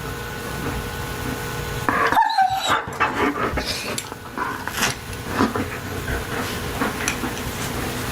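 A dog barking and yelping in a run of short, separate calls.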